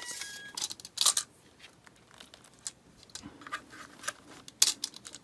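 A retractable steel tape measure being pulled out and laid across the unit: a run of irregular clicks and scrapes from the blade and hands, with two louder knocks, about a second in and near the end.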